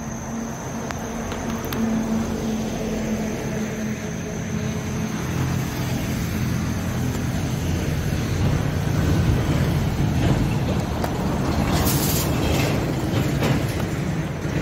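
Road traffic passing: a large vehicle's low engine rumble and tyre noise swell through the middle and are loudest a little after halfway, with a brief sharp hiss late on. Crickets chirr steadily throughout.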